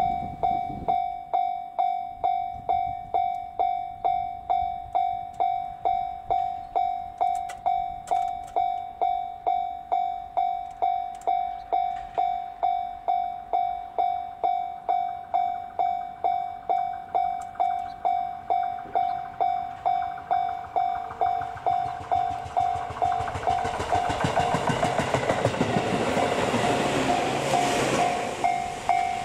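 Level-crossing warning bell ringing about twice a second. Over the last several seconds a Tobu 8000-series electric train passes close by, its wheel and running noise swelling up under the bell.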